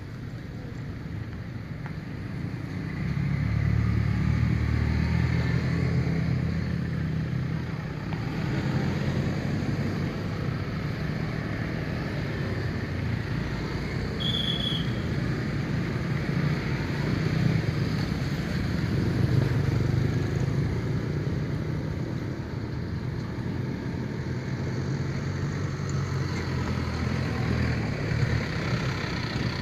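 Traffic of motor scooters and cars driving past, their small engines running in a steady stream, getting louder about three seconds in. A short high chirp is heard once about halfway through.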